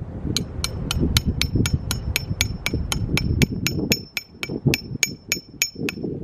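A hammer drives a metal tent stake into hard ground with about four quick, even strikes a second. Each strike has a ringing metallic clink.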